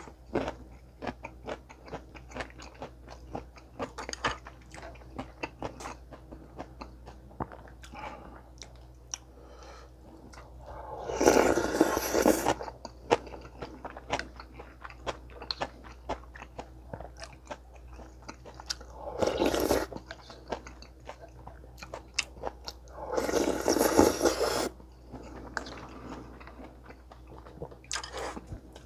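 Close-miked eating: steady chewing with many small crunchy clicks, and three louder stretches of noise lasting a second or two, about 11, 19 and 23 seconds in.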